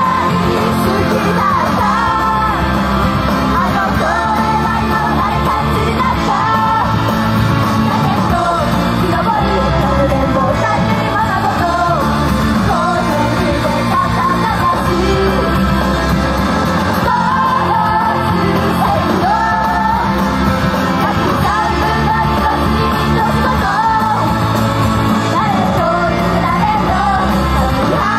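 Idol group singing a rock song live on stage over loud, steady band music, with shouted parts among the singing.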